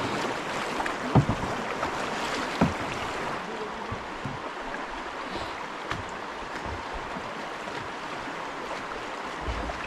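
Steady rush of river whitewater, with two short thumps in the first three seconds.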